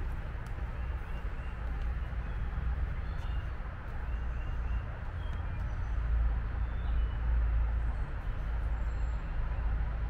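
Steady low rumble of distant road traffic, with a few short, high bird chirps scattered through it.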